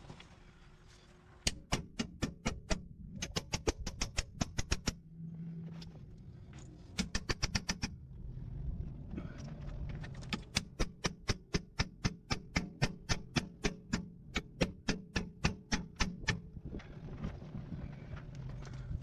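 Hand ratchet clicking in quick, even runs, about four clicks a second, as it turns the screw of a ball joint press on a Jeep Cherokee XJ's steering knuckle. There are several runs with short pauses between, the longest near the end.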